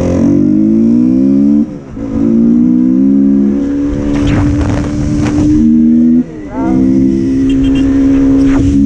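KTM Duke 200's single-cylinder engine under hard acceleration, revving up and shifting up twice, about two and six seconds in, with a brief dip at each shift.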